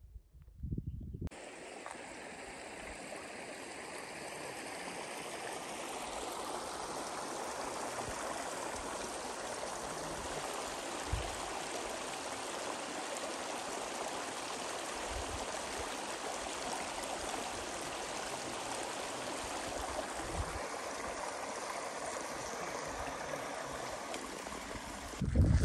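Mountain creek rushing: a steady, even rush of running water that cuts in abruptly about a second in and cuts off just before the end.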